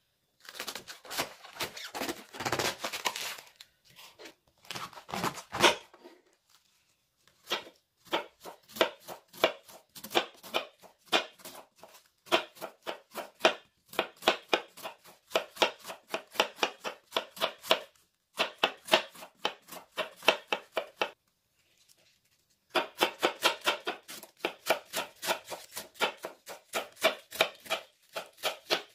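A kitchen knife shredding a head of white cabbage on a wooden cutting board: quick, even strokes, several a second, each ending in a tap of the blade on the board. The strokes come in runs broken by short pauses.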